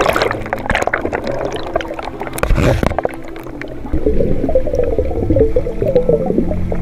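River water splashing and churning at the foot of a waterfall, then from about four seconds in a wavering, bubbling gurgle.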